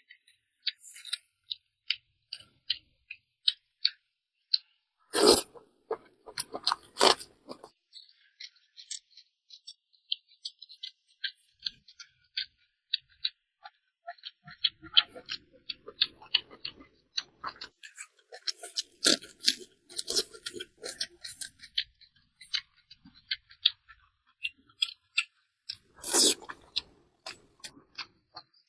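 Close mouth sounds of a person chewing fatty braised pork: a quick run of wet smacking clicks. There are a few louder, fuller mouthfuls about five to seven seconds in and again near the end.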